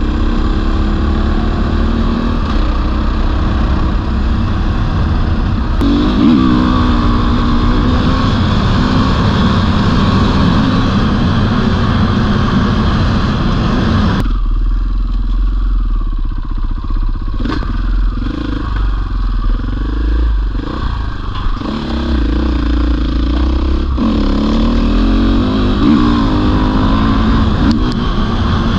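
450cc four-stroke single-cylinder enduro motorcycle engine being ridden hard, its pitch rising and falling with the throttle. About halfway through the rider eases off for several seconds and the engine note drops, with a few sharp knocks, before it comes back on the throttle near the end.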